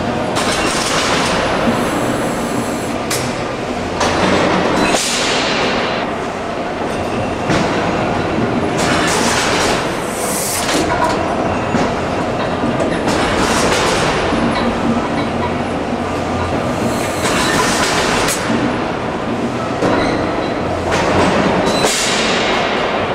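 Boulton & Watt rotative beam engine replica running: a steady clatter from its valve gear and linkages, with a rushing noise that swells about every four seconds in time with the strokes.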